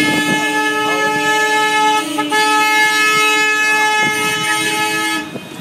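London black-cab horn held down in a protest blast: one steady, loud tone that breaks off for a moment about two seconds in, sounds again, and stops just after five seconds.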